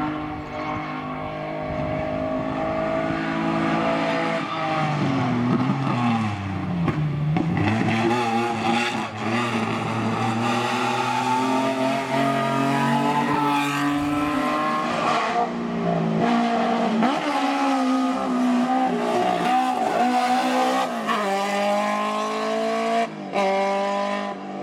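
Hillclimb race car engine at high revs as the car climbs the course. The pitch falls steeply about five to eight seconds in, then climbs again in repeated rising sweeps, each broken by a sudden drop at a gear change.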